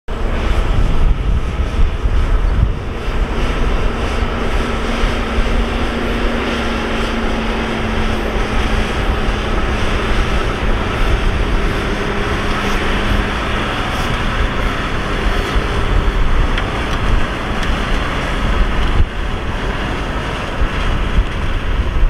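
Heavy diesel earthmoving machinery working: a loud, steady engine drone with a deep rumble underneath and a held tone that fades out about halfway through.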